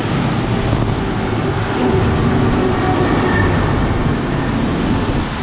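Road traffic on a rain-soaked street: a steady rush of car tyres and engines on wet tarmac.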